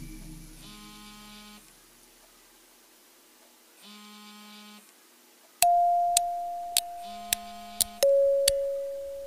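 A faint buzzing hum comes in three short spells. About halfway through, a loud electronic tone starts suddenly and slowly fades, then a second, lower tone follows, with light clicks in between.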